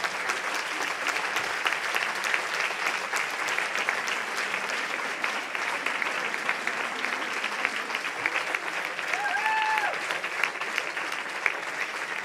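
An audience clapping steadily: sustained applause from spectators in a hall. A brief high call rings out from the crowd about nine seconds in.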